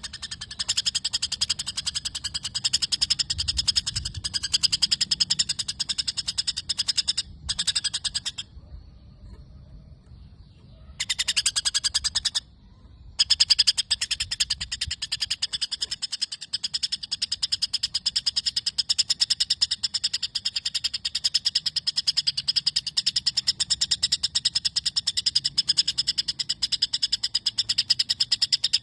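A small songbird sings a long, rapid, chattering trill of fast ticks, which breaks off briefly about a third of the way in and again a little later before running on. It is the kind of chatter kept as filler song for training white-rumped shamas.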